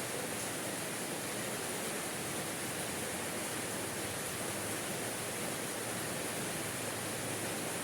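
Steady, even rain falling at night, a continuous hiss with no distinct drops or thunder standing out.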